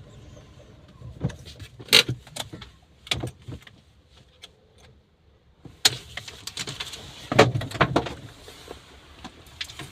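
A string of sharp clicks and knocks, with a few louder ones about two seconds in and around seven to eight seconds.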